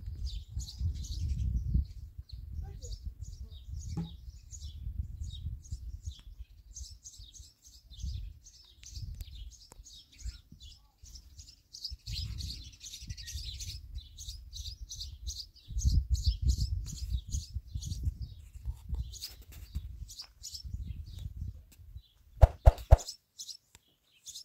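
Small birds chirping and twittering steadily over an uneven low rumble that rises and falls; a few sharp knocks near the end.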